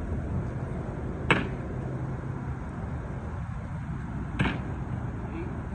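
Two cornhole bean bags thudding down on the boards or the court, one after the other about three seconds apart.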